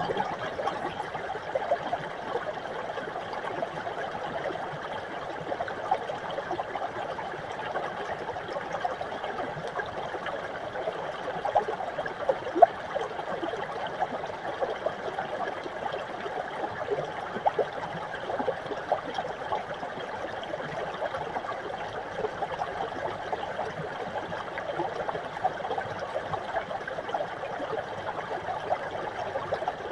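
Small mountain brook running over rocks: a steady babble of water full of tiny splashes and trickles, with one brief louder pop about twelve seconds in.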